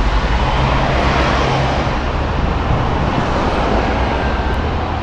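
Hong Kong double-decker tram in motion, heard from inside the car: a steady, loud rumble with a low hum, mixed with road traffic from the street.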